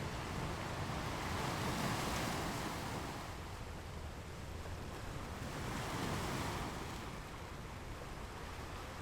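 Ocean surf: waves washing in two swells, the first peaking about two seconds in and the second about six seconds in, over a steady low rumble.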